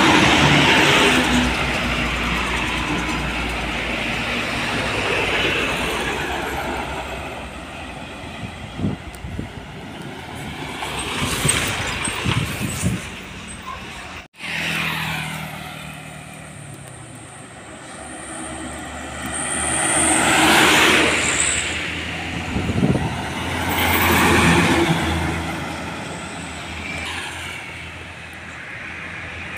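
Heavy diesel trucks and other road traffic passing close one after another on a highway, each pass swelling and fading with the drone of the engines. The first and loudest pass comes right at the start, further swells come around 11–12 s and several in the second half, and the sound cuts out for an instant near the middle.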